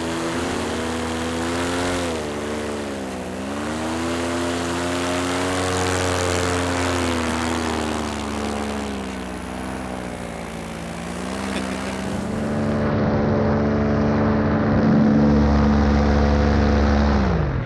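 Paramotor engine and propeller running in flight. The engine speed dips and picks up again twice. Near the end it runs louder and steady, then its pitch falls sharply at the very end.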